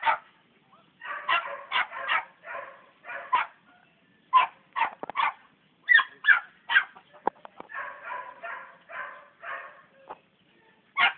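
Young podenco puppy giving tongue at its first rabbit: runs of short, high yelps, about three or four a second, broken by a few short pauses.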